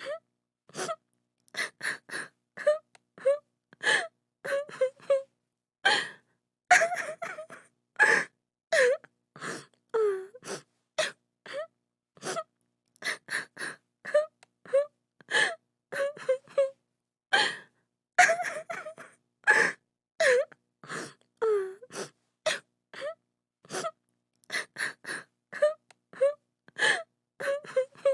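A woman crying: a quick, unbroken string of short gasping sobs and whimpers, now and then a brief wailing cry that falls in pitch.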